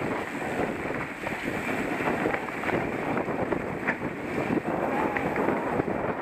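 Mountain bike descending a dirt singletrack at speed: tyres rolling and crunching over dirt, the bike rattling and knocking over bumps, and wind buffeting the microphone.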